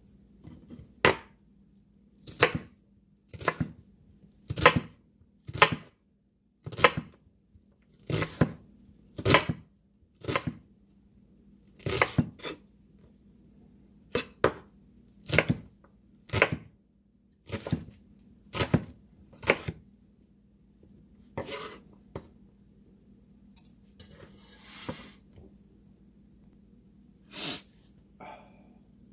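Knife chopping on a cutting board in slow, even strokes about once a second, then a few scattered chops and a brief scrape.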